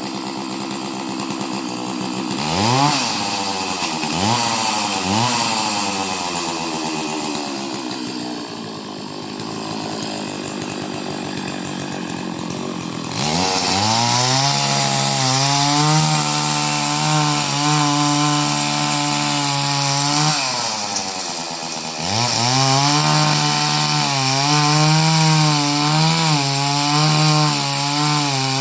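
Chainsaw engine running. It is blipped three times a few seconds in and runs lower for a while. About halfway through it is held at high revs for several seconds, dips briefly, then goes back to high revs near the end.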